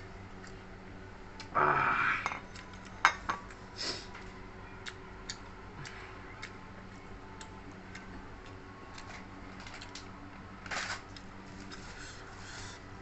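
Close-up eating sounds: scattered light clicks and smacks of chewing, with a few louder crunchy bursts, the loudest about two seconds in and another near the end, over a steady low hum.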